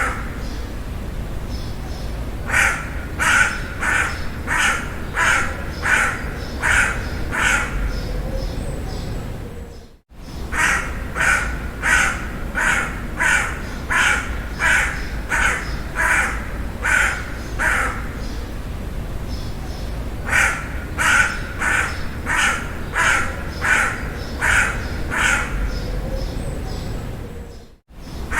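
Crow cawing in runs of short, rapid caws, about two a second, with pauses of a few seconds between runs, over a steady low background rumble. The sound drops out to silence for a split second twice.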